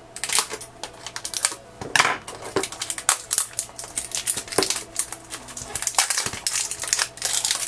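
Scissors snipping the seal on a small plastic toy carrier box, then the hard plastic carrier being handled and opened, with irregular clicks, snaps and rustling.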